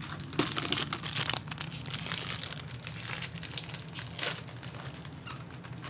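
Toy packaging wrapper being torn open and crinkled by hand, in many irregular sharp crackles.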